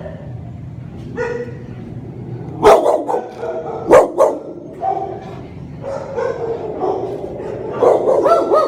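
Shelter dogs barking, with loud sharp barks about three and four seconds in, among higher-pitched yips and whines.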